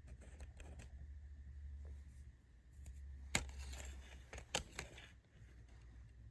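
Hands handling DVD box-set packaging: soft rustling with two sharp clicks, one about three and a half seconds in and another a second later, over a low steady hum.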